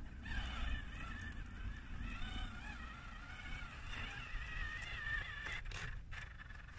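Electric drive motors and gearboxes of a Fayee-based RC tracked truck whining as it drives over sand; the pitch wavers up and down with throttle and load. A steady low rumble runs underneath.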